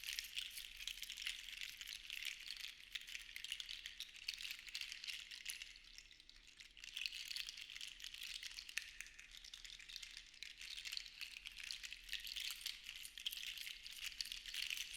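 Seashells rattling together in a continuous soft clatter of tiny clicks that swells and eases, with a brief lull about six seconds in.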